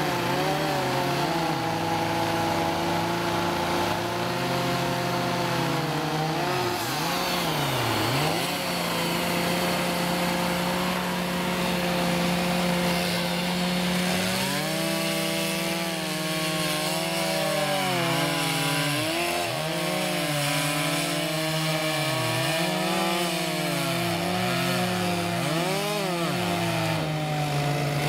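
Chainsaws cutting through large log rounds, the engine pitch dipping as the chain bites into the wood and climbing again as it frees, over and over. From about halfway on, two saws run at once.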